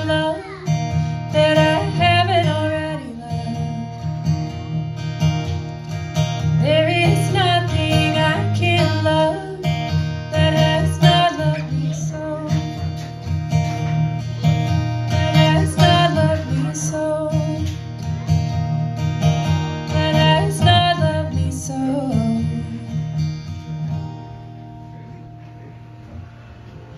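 Acoustic guitar strummed with a woman singing over it, the close of a song; the playing stops about 24 seconds in and the last chord fades out.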